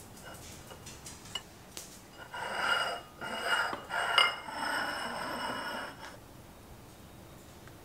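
A metal utensil clinking and scraping against a dish: a few light clicks, then from about two seconds in a scrape of some four seconds with a squeaky ringing edge and a sharp clink in the middle, stopping abruptly near six seconds.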